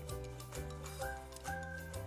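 Background music with a steady beat, a bass line that steps between notes and held melody notes above it.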